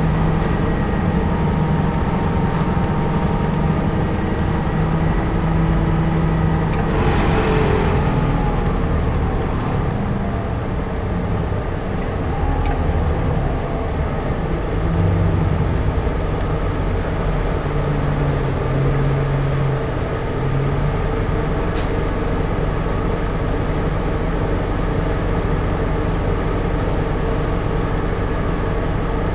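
Keio city bus running on its route, heard from inside the cabin: a steady diesel engine and drivetrain hum that shifts in pitch as the bus speeds up and slows. A brief hiss comes about seven seconds in.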